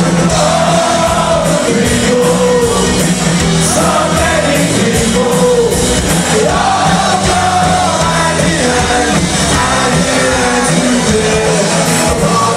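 Live rock cover band playing loudly, with singing over the band.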